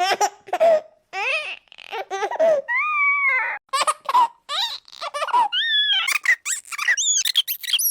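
Baby giggling: a run of short, high-pitched baby giggle sound-effect clips, one after another with brief gaps between them.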